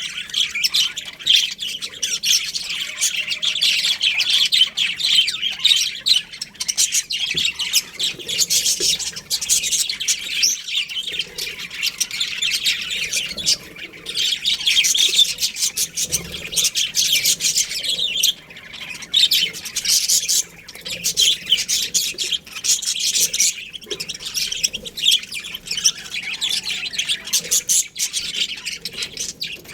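A colony of budgerigars chirping and squawking continuously, many birds calling over one another.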